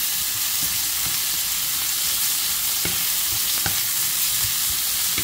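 Chopped onion and sliced sausage sizzling in a nonstick frying pan, a steady frying hiss, while a wooden spatula stirs them with a few light scrapes against the pan.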